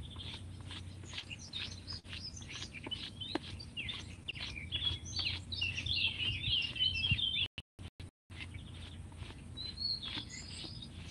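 Birds chirping and singing, with a busy run of quick high chirps in the middle. The sound cuts out briefly about two thirds of the way through.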